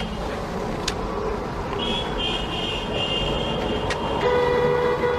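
Vehicle horns held in long toots over engine and road noise. One higher-pitched horn sounds from about two seconds in, and a lower one starts near the end. Two sharp clicks come in between.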